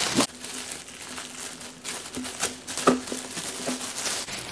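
Clear plastic bag crinkling and crackling as it is handled and pulled off a box, with irregular rustles throughout and a sharper crackle about three seconds in.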